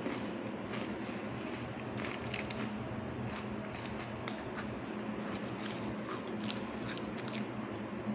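Close-up biting and chewing of Oreo cookies, with scattered short crisp crunches, over a steady low hum.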